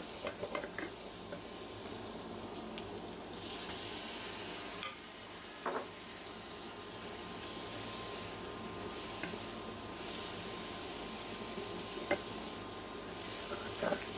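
Vegetables, egg and noodles frying in a granite-coated frying pan, sizzling steadily, with a spatula stirring and tapping against the pan now and then.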